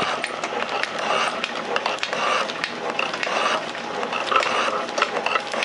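Metal shaper running and taking cuts in a steel workpiece, its ram stroking back and forth with a repeating mechanical clatter about once a second.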